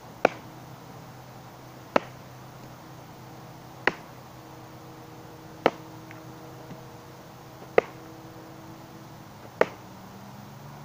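A wooden stick being swung and whacked hard against something, six sharp cracking strikes about two seconds apart, in an effort to break it.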